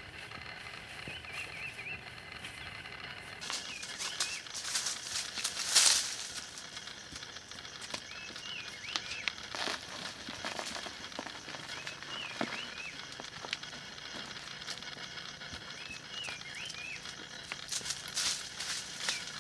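A small bird chirping short phrases every few seconds over a steady high drone, with the rustle and hiss of loose dry soil poured from a clay pot. The loudest sound is a brief rush of noise about six seconds in.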